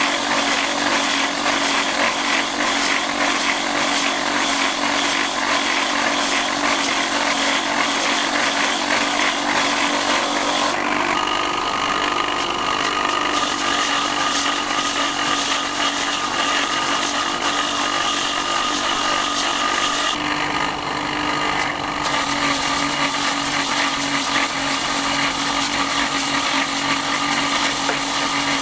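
Motor-driven spinning disc shaving the fibrous husk off a young coconut: a steady machine whine with a coarse rasping as the husk is ground away. About eleven seconds in the sound changes to a steadier whine with less rasping.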